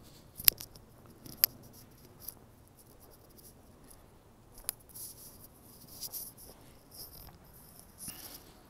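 Footsteps crunching on packed snow, roughly one a second through the second half, with a few sharp clicks in the first couple of seconds.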